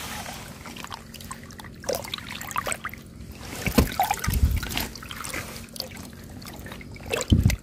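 Water trickling and sloshing as a hand gropes through a shallow spring pool, with water splashing and dripping from the lifted hand. A few dull low thumps sound around the middle and near the end.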